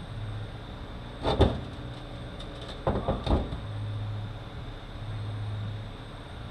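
Metal parts of a 1356 transfer case knocking and clanking as it is taken apart by hand: one knock about a second in, then a quick run of three or four knocks, over a low steady hum.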